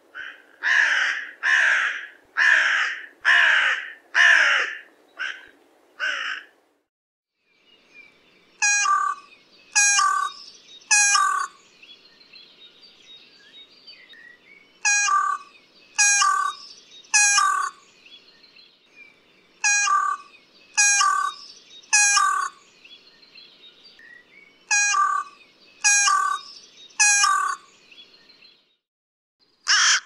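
Carrion crow cawing: first a run of about six harsh caws in quick succession, then, after a short pause, caws in sets of three, each set repeated about every five seconds. Faint chirping of other birds lies behind the later calls.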